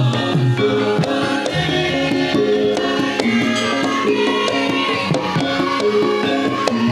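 Javanese gamelan music for lengger dance: layered metal-keyed melodic tones over frequent hand-drum (kendang) strokes, some of them bending down in pitch.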